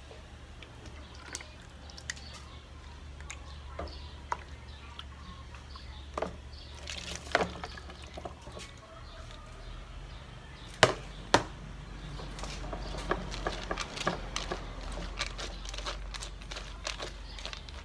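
Water poured over black pepper seeds in a plastic colander, trickling and dripping through into a tub below. Scattered clicks and a denser rattle follow in the second half as the wet seeds are rubbed and stirred by hand in the plastic strainer, with two sharper clicks partway through.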